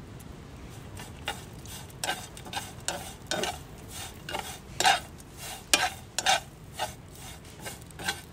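Fresh chè tiên tea buds being pan-roasted in a dry metal pan: a long metal utensil scrapes and rustles the leaves around in repeated strokes, roughly one or two a second, starting about a second in. This is the firing stage that dries the tea.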